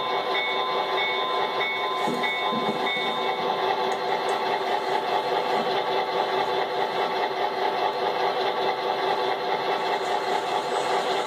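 Model diesel locomotives running slowly, their onboard sound producing a steady engine drone. A bell dings about twice a second and stops about three seconds in.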